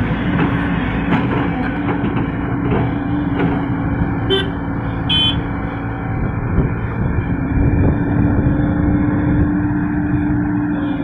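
Heavy diesel engine running steadily under load, with two short high-pitched horn toots a little under a second apart, about four and five seconds in.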